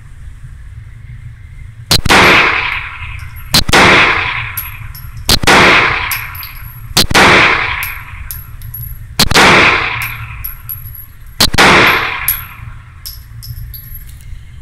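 Six shots from a Springfield 9 mm pistol, about two seconds apart, each followed by a long echo off the walls of the indoor range.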